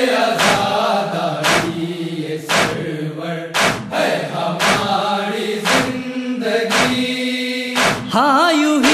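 Men chanting a noha together on long held notes, over a heavy slap of hands beating chests (matam) about once a second.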